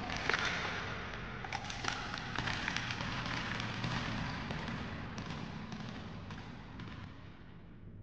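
Soundtrack of a projected dancing-skeleton Halloween animation: a noisy wash full of quick clicks and knocks over a low steady hum, fading out gradually as the animation ends.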